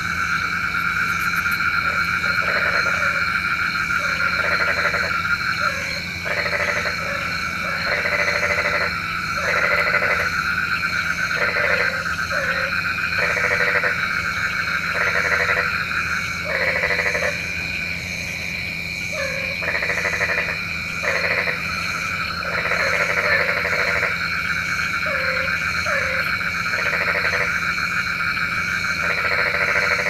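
Frogs croaking: short croaks repeat roughly once a second over a steady, higher background chorus, with a brief lull about two-thirds of the way through.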